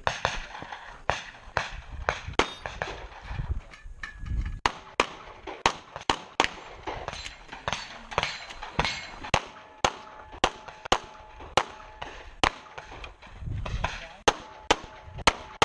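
Rapid pistol fire during a USPSA practical-shooting stage: about thirty shots in an uneven string, often fired as quick pairs with short pauses between target arrays, and a faint ringing under the later shots.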